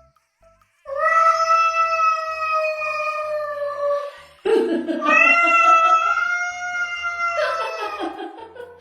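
Cat yowling in two long, drawn-out calls. The first holds a steady, slightly falling pitch for about three seconds. The second starts rough and low, rises into a held tone, then falls away roughly near the end.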